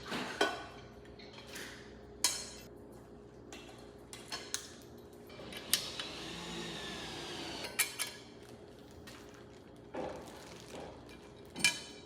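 Dishes and utensils clinking and knocking as they are handled and set down: a handful of separate sharp clinks a second or two apart.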